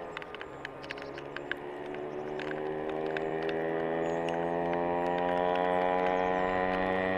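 KTM Duke 125's single-cylinder four-stroke engine running, its note rising slowly and steadily in pitch and getting louder. A few light ticks sound in the first second and a half.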